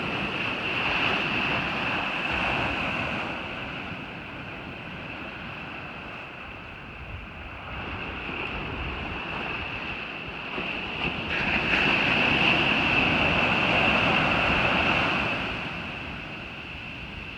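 Ocean surf washing onto a beach, swelling louder about two-thirds of the way through and then easing off, over a steady high hiss.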